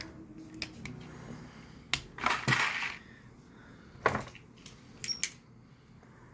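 Small metal parts clicking and clinking a few times, with a short scraping rustle about two seconds in, as a small release mechanism is handled.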